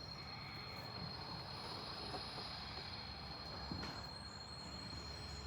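Steady low room noise during a silent held pose: a soft hiss with a constant high-pitched whine, and a faint knock about four seconds in.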